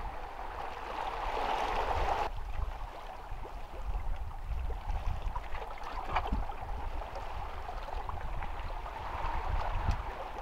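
Small sea waves washing against shoreline rocks, with wind rumbling on the microphone. The sound changes abruptly about two seconds in.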